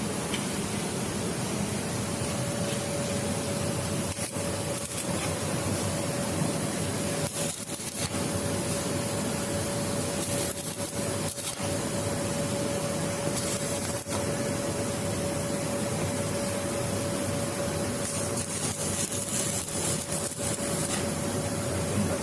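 Steady machine noise: a motor running with a constant mid-pitched hum over a rushing sound, dipping briefly a few times.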